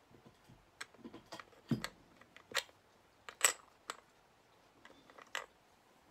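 Irregular clicks and small metallic clinks, about a dozen over a few seconds, as small metal embellishments on an altered-book cover are pressed and handled; the sharpest clink, about halfway through, rings briefly.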